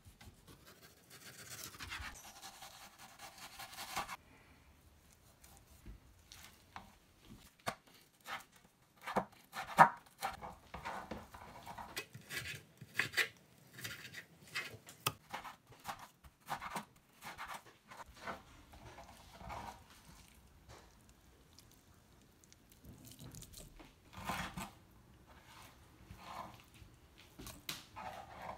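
Chef's knife slicing raw beef on a bamboo cutting board: irregular soft taps and knocks of the blade meeting the wood, the sharpest about ten seconds in. An unidentified steady sound fills the first three seconds or so.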